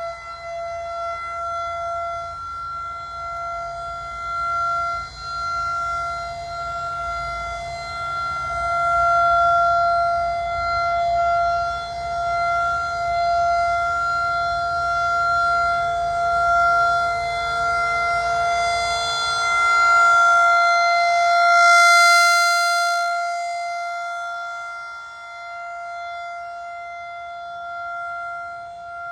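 Federal Signal 2001-SRN electromechanical outdoor warning siren sounding a steady single tone during a test, its loudness swelling and fading as the rotating horn sweeps past. A low rumble under it stops about two-thirds of the way through.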